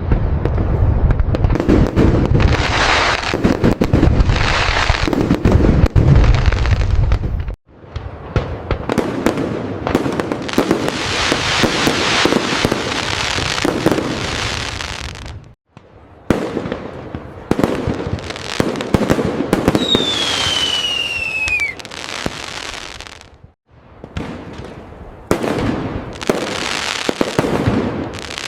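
Fireworks display: dense booms and crackling bursts, heaviest and deepest in the first several seconds, broken into four stretches that each cut off suddenly. About twenty seconds in, a single whistle falls in pitch over two seconds.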